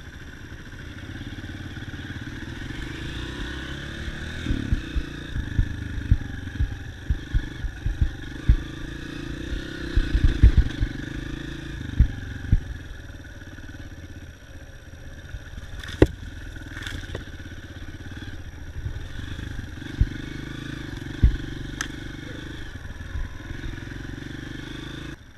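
Dirt bike engine running steadily while riding, with many sharp knocks and thumps, thickest from about four to thirteen seconds in, then a few scattered ones.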